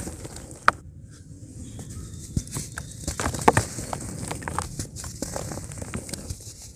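Handfuls of cement being crumbled between the fingers, the grit pattering down onto a pile of loose cement powder, with scattered sharp little cracks as lumps break apart.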